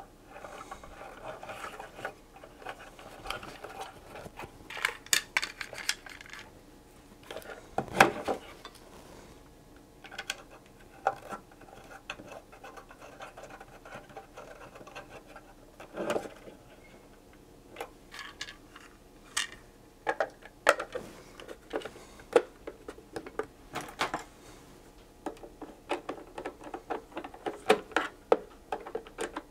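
Scattered clicks, taps and knocks of a multimeter case being handled and worked on by hand on a workbench, with a few louder knocks.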